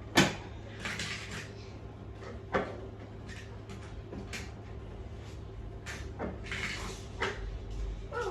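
Clunks and scrapes of a window air conditioner being lifted and shifted into a window frame: a sharp knock right at the start, another about two and a half seconds in, and scraping in between and near the end.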